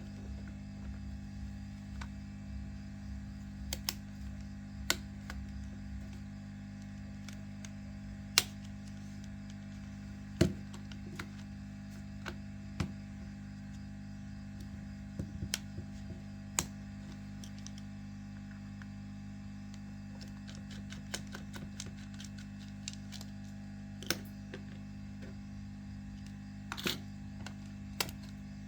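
Small hand tools clicking and tapping on a smartphone's parts during disassembly: scattered sharp ticks, a few louder, over a steady low hum.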